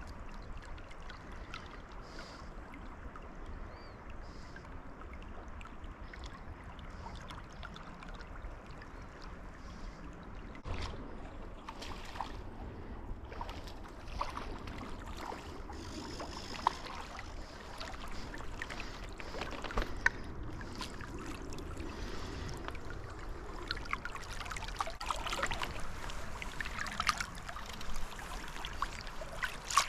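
Creek water running steadily, with scattered small clicks and knocks that become busier near the end.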